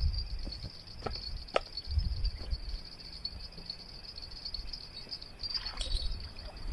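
Insects chirring in a steady, high-pitched drone, with bouts of low rumble underneath and a few short clicks.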